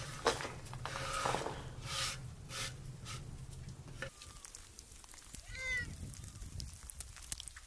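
Scattered knocks and clatter of kitchen work, with a low hum that stops about halfway through. A single short animal call, rising and falling in pitch, comes about two-thirds of the way in.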